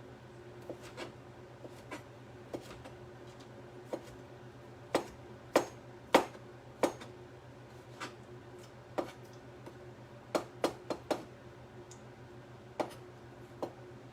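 Kitchen knife chopping through tomato onto a cutting board: irregular sharp knocks, some in quick runs, the loudest a few seconds in. A faint steady hum runs underneath.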